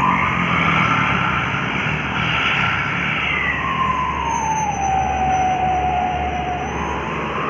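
A heavy truck or bus engine labouring uphill under load, with a low rumble and a loud whine that drops in pitch about halfway through and climbs again near the end as the engine speed changes.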